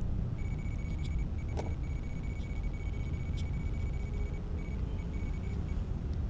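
Wind buffeting the microphone as a constant low rumble. Over it runs a faint steady high-pitched whine that cuts in and out, with a few light clicks.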